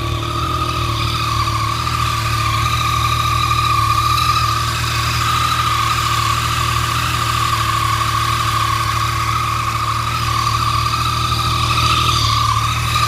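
Yamaha FZ-09's three-cylinder engine idling steadily after a cold start, with a strong, steady high-pitched whine over the low idle note. The owner finds the noise abnormal, though a Yamaha technician called it normal for a triple.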